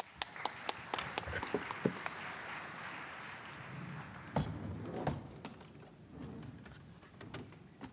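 Audience applauding, the clapping thinning out after about four seconds. It is followed by a couple of sharp knocks at about four and five seconds in.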